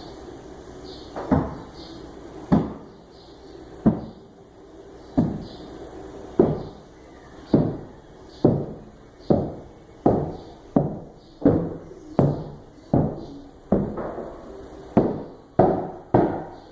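A long series of heavy thuds, each trailing off in a short ring. They come about every second and a quarter at first and quicken to about two a second near the end.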